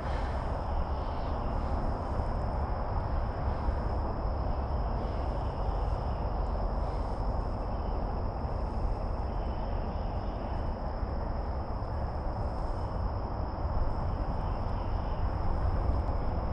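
Insects trilling without a break, a constant high-pitched buzz, over a steady low rumble.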